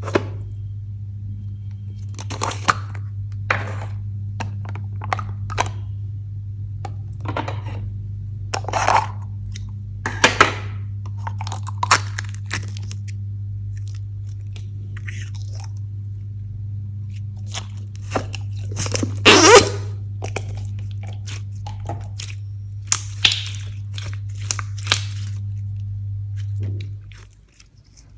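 Slime being kneaded and pressed by hand, making irregular crunching and crackling, with its loudest crunch a little past the middle. A steady low hum runs underneath and cuts off near the end.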